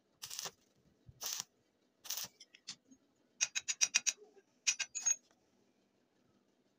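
Steel rebar and a welding rod being handled against each other: three short scraping sounds, then a quick run of about seven ringing metal clicks and a few more about a second later.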